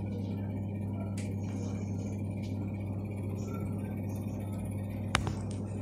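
Oven running with a steady low hum while fish bakes inside, with faint sizzling crackles. A single sharp click comes about five seconds in.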